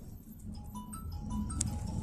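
A simple tune of short, high single notes plays over the low steady hum of the PAZ 32053 bus's ZMZ-5234 engine running in traffic.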